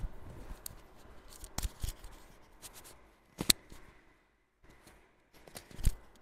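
Clip-on microphone being handled and rubbed against shirt fabric as it is moved and reclipped: scratchy rustling with a few sharp clicks, the loudest about three and a half seconds in.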